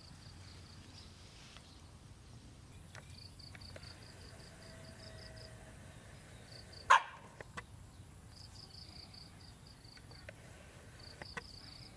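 A dog barks once, a single short, sharp bark about seven seconds in. Runs of rapid, high-pitched chirps sound faintly in the background.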